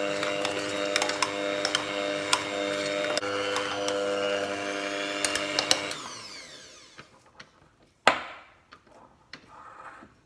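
Electric hand mixer with dough hooks running steadily, the hooks clicking against the side of a stainless steel saucepan as they work a very wet, sticky wholemeal dough. About six seconds in the motor is switched off and winds down, followed by one sharp knock.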